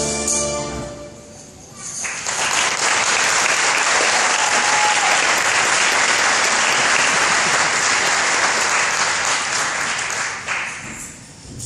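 A congregation applauding a children's choir, starting about two seconds in and running for about eight seconds before dying away near the end. Just before, the last notes of the song fade out.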